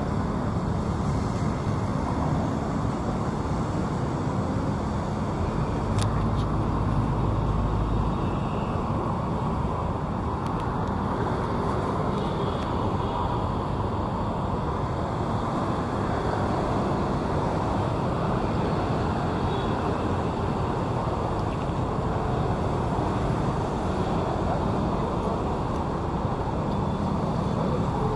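Steady city road traffic heard from the pavement, an even wash of passing vehicles. A deeper low rumble swells for a couple of seconds about five to eight seconds in.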